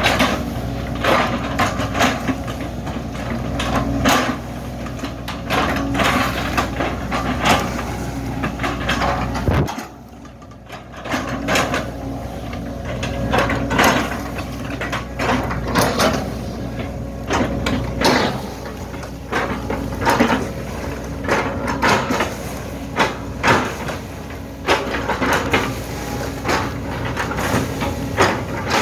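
Hydraulic excavator's diesel engine running steadily, with many sharp knocks and cracks as it works on a tree. The sound drops away for about a second roughly ten seconds in.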